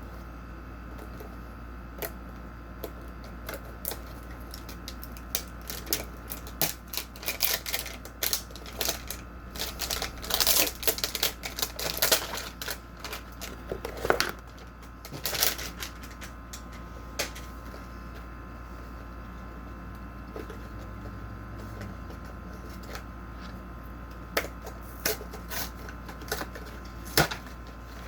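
Packaging of a Pokémon trading card box being opened and handled: irregular crackling, rustling and clicks, thickest in the middle stretch and sparse near the start and end. A steady faint hum lies under it.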